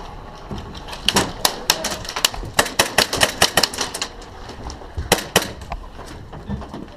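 Airsoft gunfire: a run of sharp, irregular clicking shots, thickest from about one to four seconds in, then two more about five seconds in.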